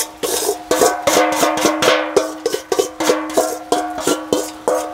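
Metal spoon rapidly knocking and scraping against a metal bowl to knock the last of the food into a pot, about four or five irregular strikes a second, each ringing with a clear metallic tone.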